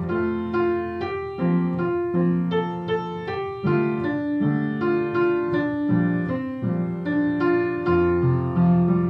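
Piano playing a slow, gentle piece: single notes and chords struck roughly every half second to a second, each left to ring and fade.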